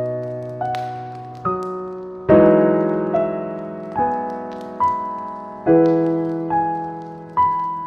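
Calm solo piano playing a slow melody over held chords, a new note or chord struck about every second and left to fade. Faint crackling from a fireplace fire sits beneath it.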